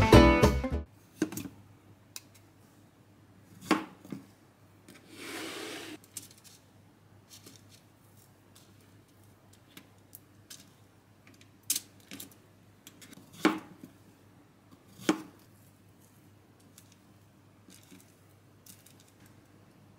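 Guitar music stops within the first second. Then come sparse soft taps and clicks as zucchini slices are set down on a parchment-lined metal baking tray, with a brief rustle about five seconds in.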